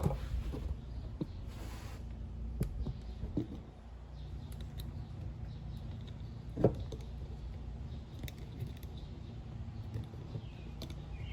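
Small metal parts being handled and set down on a workbench: scattered light clicks and clinks, with one sharper knock about six and a half seconds in, over a steady low hum.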